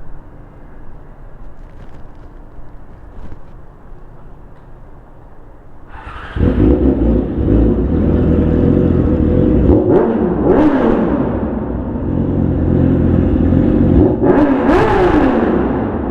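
Yamaha R6's inline-four engine through a Leo Vince aftermarket exhaust: a lower running sound at first, then much louder from about six seconds in, with the revs rising and falling twice.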